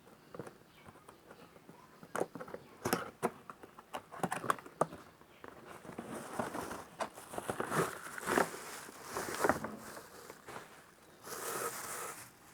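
The hair dryer's box and packaging being opened and handled: scattered taps and clicks, then rustling and crinkling, with a louder burst of rustling near the end.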